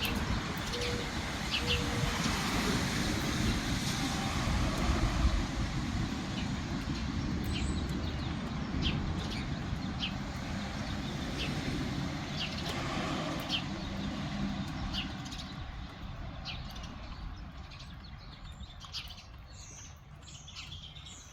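Gusty wind rumbling on the microphone, slowly easing off, with a bird chirping over it about once a second.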